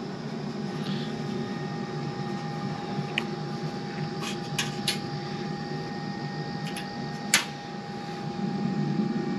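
Country Smokers Traveler pellet grill running, its fan giving a steady hum with a constant whine, with a few light metal clicks and a sharper knock about seven seconds in.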